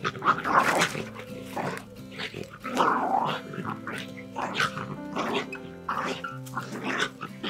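Two small dogs play-fighting, growling in short irregular bursts, over background music with long held notes.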